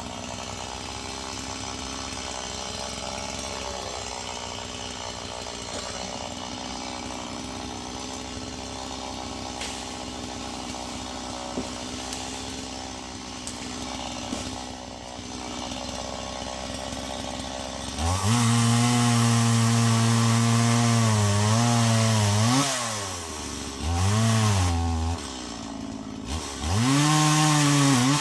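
Stihl chainsaw running steadily at a moderate level, then revved up loud to full throttle about two-thirds of the way in, bucking ash logs; near the end the pitch drops and climbs back twice as the throttle is eased off and opened again.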